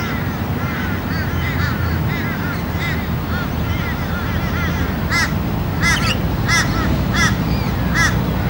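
A bird calling repeatedly in short, rising-then-falling calls. They are fainter at first, then louder and more regular from about five seconds in, one to two a second, over a steady low rumble.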